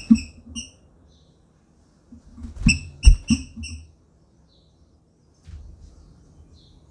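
Female green-winged saltator (trinca-ferro) giving short, sharp chip calls in two quick runs, about four notes at the start and five more a little over two seconds later. Sharp knocks of the bird landing on the wooden cage perch come with the calls.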